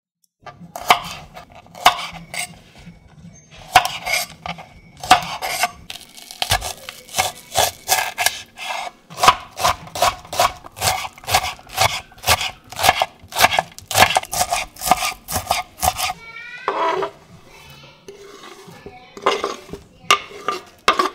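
Kitchen knife chopping spring onions on a bamboo cutting board: a run of sharp, even chops at about two to three a second, with a scrape and a few knocks near the end.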